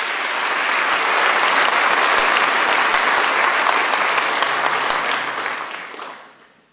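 A large audience applauding, sustained and even, then dying away near the end.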